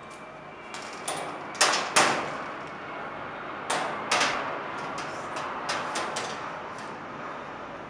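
Parts of a troffer light fixture being handled: a series of sharp clacks and knocks, two loud pairs in the first half followed by several lighter ones.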